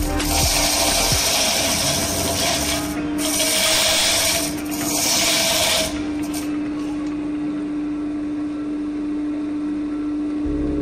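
Hollowing tool cutting inside a spinning olive-root hollow form on a wood lathe: a loud scraping hiss with two brief breaks, stopping about six seconds in. The lathe's motor keeps running with a steady hum.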